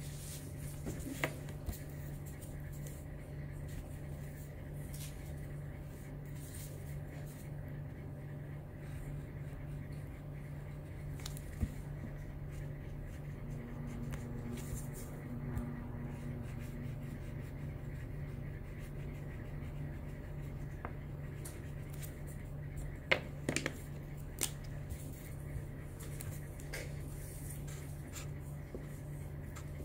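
Felt-tip marker drawing on card, faint scratching strokes with a cluster of sharp clicks about two-thirds of the way through, over a steady low hum.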